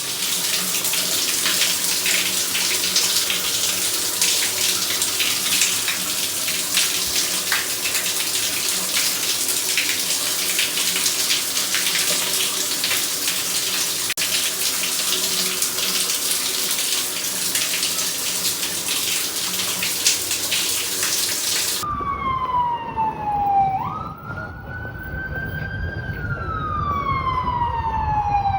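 Shower water spraying in a steady hiss, then a sudden cut to a wailing siren whose pitch slides down and sweeps back up, about twice, near the end.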